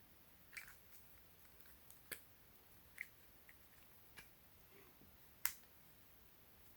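Faint, scattered clicks and taps from handling small plastic gadgets, about five sharp ones over several seconds, the loudest near the end.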